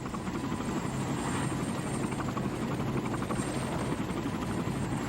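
Helicopter in flight, its rotor blades beating a rapid, even chop over a steady low drone.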